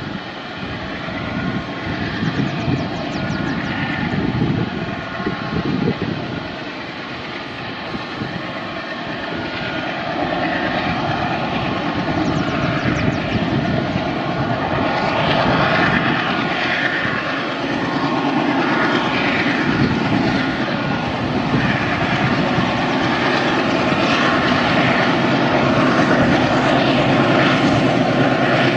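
Twin ALCO WDG3A diesel-electric locomotives hauling a container train, their engines running with a steady drone that grows louder as they approach.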